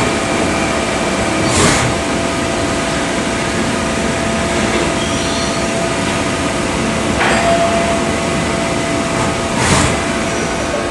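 Running CNC lathes in a machine shop: a steady mechanical din with several steady whining tones and a few short hisses.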